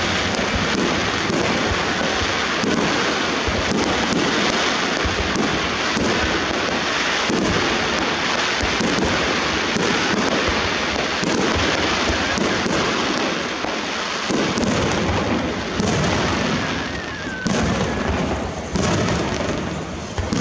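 Aerial fireworks shells launching and bursting in a dense, continuous barrage of booms and crackle. In the last few seconds it thins out, and single sharp reports stand out.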